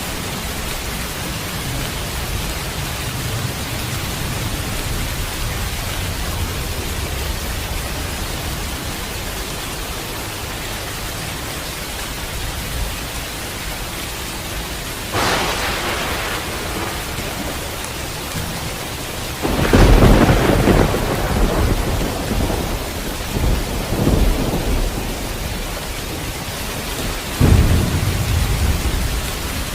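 Steady rain falling through a thunderstorm, with a low rumble of distant thunder at first. A sharp thunderclap comes about halfway through, then the loudest clap at about two-thirds, rolling on for several seconds, and another sudden clap near the end.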